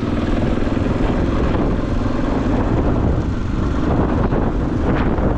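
Dual-sport motorcycle engine running steadily under the rider as it climbs a rocky dirt track, heard close from the bike, with a few short clicks of loose stones near the end.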